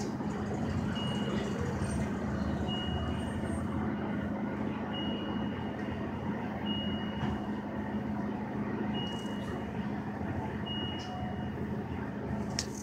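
City transit bus interior: the engine drone runs steadily, and a short high-pitched electronic beep repeats about every two seconds.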